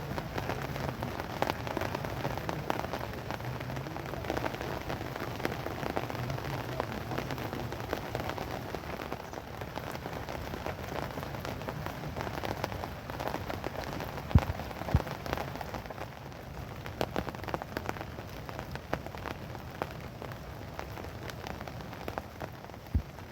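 Steady rain with many small ticks of individual drops striking, and a few sharper, louder drop hits about fourteen seconds in and near the end.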